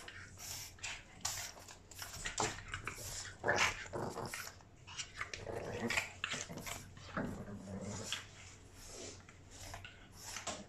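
Two Boston terriers, a 12-week-old puppy and an adult, play-fighting: a string of short growls and scuffles, with one longer growl about three-quarters of the way through.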